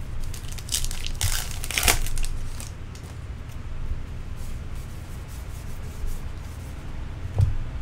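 A trading-card pack wrapper crinkling and tearing for about a second, starting just under a second in, then the softer rustle of cards slid through the hands.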